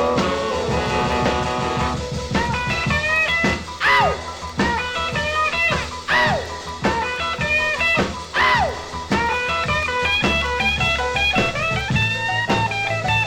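Instrumental music with quick plucked, guitar-like notes over a steady bass line, and three swooping notes that rise and fall in pitch, about two seconds apart.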